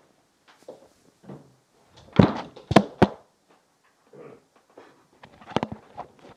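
A few knocks and thumps, as of people moving about and bumping a table and chairs. The loudest come in a quick cluster about two to three seconds in, with another short cluster near the end.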